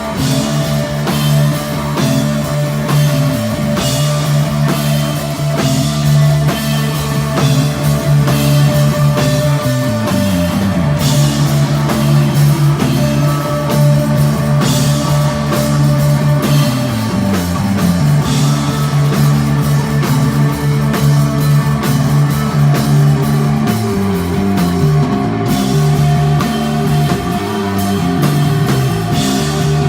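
Live instrumental desert rock band playing: a steady drum beat under guitar and a held bass line that slides between notes every few seconds.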